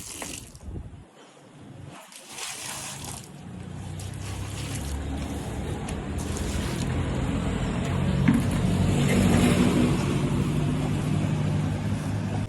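A machine's motor running with a steady hum that grows louder over several seconds.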